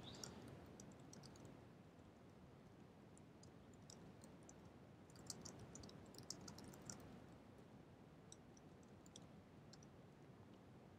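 Faint computer keyboard typing: scattered key clicks, busiest about five to seven seconds in, over near-silent room tone.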